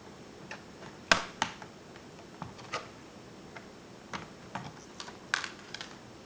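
Irregular sharp clicks and taps of plastic and small metal laptop parts being handled as an IBM ThinkPad R50 is taken apart, about a dozen in all, the loudest about a second in and again near the end.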